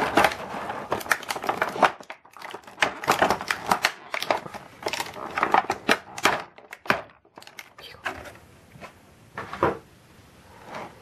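Clear plastic blister tray crackling and crinkling as hands press and shift it, in quick irregular crackles for most of the first seven seconds, then a few softer rustles and one louder crackle near the end.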